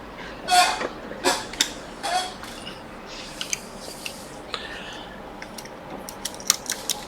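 Small hard clicks and taps of tools and phone parts being handled while a logic board is refitted into an iPhone 6 housing. A few short rustling sounds come in the first couple of seconds, and quick clicks cluster near the end.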